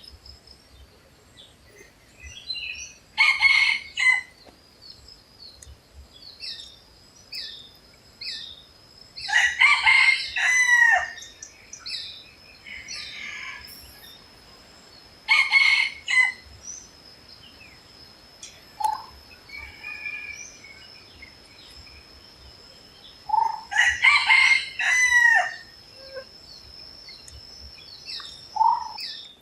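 Red junglefowl crowing, four loud short crows spaced several seconds apart, with small birds chirping between them. A steady high thin tone runs under most of it.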